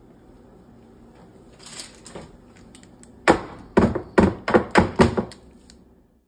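Metal spatula knocking against a metal baking tray: a few faint clicks, then a quick run of about seven sharp taps starting about three seconds in.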